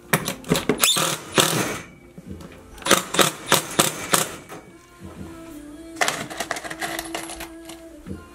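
Cordless driver with its work light on, run in three short bursts of rapid rattling, fastening parts of a hydronic baseboard heater. Quiet background music plays between the bursts.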